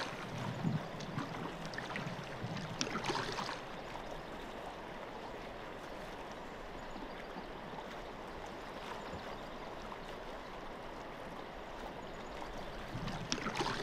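Steady rush of a shallow river running over rocks into the sea at its mouth, with a few sharp knocks in the first three seconds or so.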